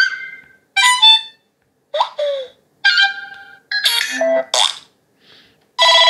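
Built-in notification tones of a Samsung Galaxy S24-series phone previewing from its speaker as each one in the list is tapped. About six short, different pitched jingles play in turn, roughly one a second, each cut short by the next.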